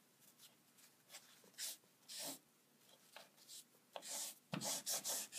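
Short, scratchy scribbling strokes on paper, faint, a few scattered at first and then a quicker run of them near the end.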